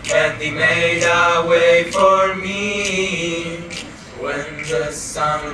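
Mixed youth choir singing, with held notes and a brief dip in the sound about four seconds in.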